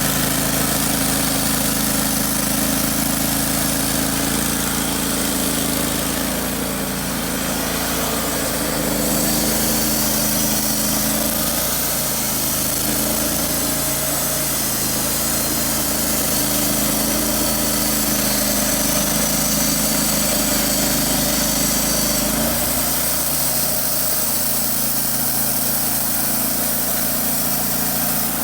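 Wood-Mizer LT15 Wide portable sawmill's engine running steadily under the band saw's cut. Its note shifts a few seconds in, and again about 22 seconds in.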